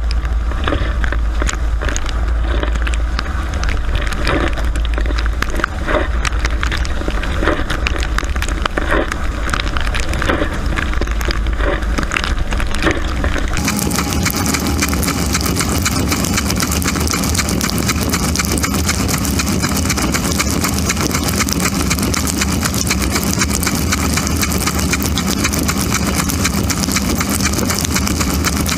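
Dishwasher running, heard from inside the tub: a steady low motor hum with water splashing irregularly against the racks and walls. About 14 seconds in the sound switches abruptly to a steady, bright hiss of spraying water.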